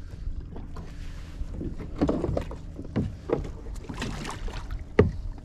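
Irregular knocks, clunks and splashes on and beside a plastic fishing kayak as a hooked halibut is handled at its side. A sharp knock about five seconds in is the loudest.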